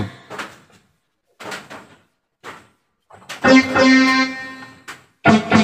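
Yamaha PSR electronic keyboard being played in short test phrases. A few fading notes and brief gaps come first, then a held chord with a steady low note from about three and a half seconds in. It cuts off abruptly near five seconds and starts again.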